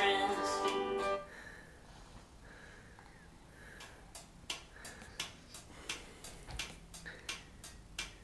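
A children's song with plucked strings plays from a tablet's speaker and stops about a second in. After that it is quiet apart from a run of light, irregular taps and clicks.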